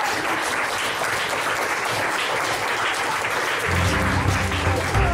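A classroom of children clapping in applause. About three and a half seconds in, music with a deep bass line comes in under the clapping.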